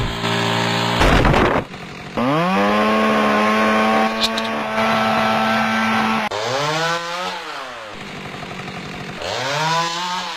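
Chainsaw revving: it climbs to full speed about two seconds in and holds there for about four seconds, then gives two shorter revs that rise and fall.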